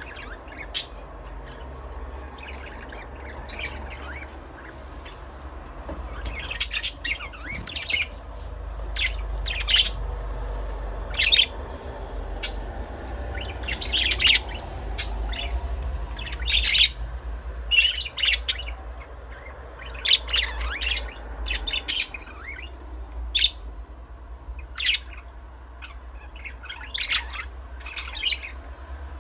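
Budgerigars chirping and squawking: many short, sharp calls at irregular intervals, thicker from about six seconds in, over a steady low hum.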